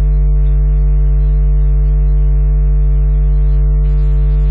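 Loud, steady electrical mains hum in the recording: a low buzz with a row of evenly spaced overtones and no change in pitch or level.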